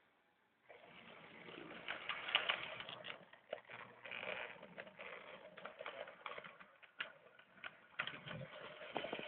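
Lionel toy train rolling past on its track, starting about a second in: a steady rattle with many irregular clicks from the wheels on the rails.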